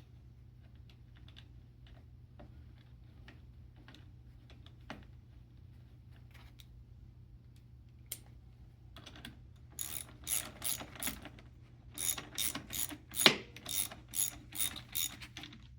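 Socket ratchet wrench clicking in quick runs as it tightens the 13mm nut on a golf cart's caster fork. Faint scattered clicks first, then from about nine seconds in several short bursts of rapid ratcheting.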